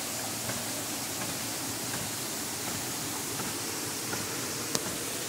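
Steady rush of water pouring over a dam spillway and running down the channel, with a few faint knocks and one sharp click near the end.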